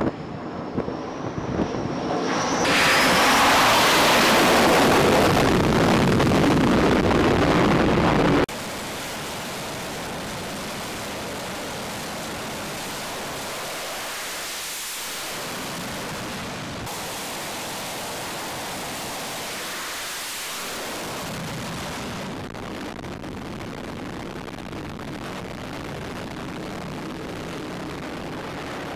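F/A-18 jets on an aircraft carrier flight deck: a high whine rising as a jet comes in, then a loud jet roar that cuts off suddenly about eight seconds in. Steadier, quieter jet engine noise follows for the rest of the time.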